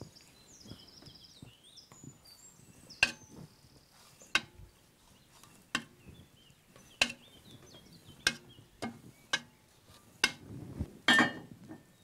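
A knife scoring the crust of a risen loaf in a cast-iron Dutch oven: a series of sharp ticks, a little over a second apart, as each cut is drawn. Near the end comes a louder clatter as the heavy cast-iron lid is set on the pot.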